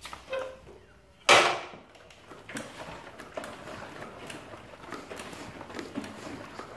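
Front fork of a Yamaha WR250F being pumped up and down by hand to test a freshly cleaned fork seal for leaks. A loud, sudden rush of noise about a second in, then a run of irregular small knocks and creaks as the suspension compresses and rebounds.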